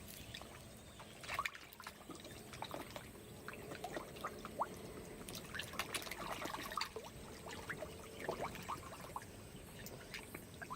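Pond water splashing and trickling at the edge, with many small plops and drips coming irregularly, busiest in the middle of the stretch.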